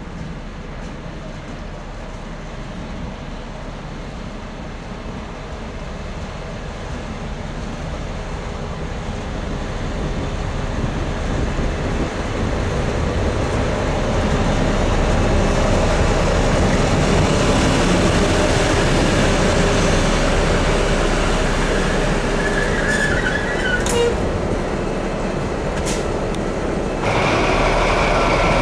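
DB class 212 (V100) diesel-hydraulic locomotive running light, its V12 diesel engine growing steadily louder as it approaches and passes close by. Shortly before it passes there are a few sharp clicks and a brief wheel squeal, and the engine sound jumps up suddenly as the locomotive draws level.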